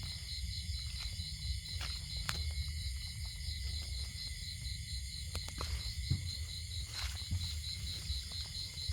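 Chorus of night insects such as crickets: several steady high-pitched buzzes, one of them pulsing about three times a second. A low rumble and a few sharp clicks lie underneath.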